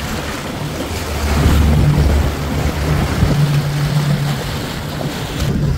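Jet ski engine running steadily under way, with rushing wind and water noise over the microphone; the noise swells twice and drops off abruptly near the end.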